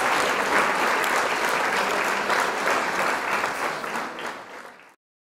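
Audience applauding in a hall, fading out about four and a half seconds in, then dead silence.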